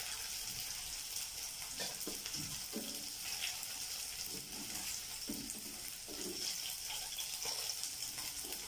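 Flour-coated cauliflower florets sizzling steadily in hot oil in a wok, with a wooden spatula scraping and knocking against the pan at irregular moments as the pieces are turned.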